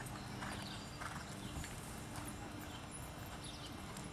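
Horse cantering on sand arena footing, its hoofbeats coming as soft, regular thuds about twice a second.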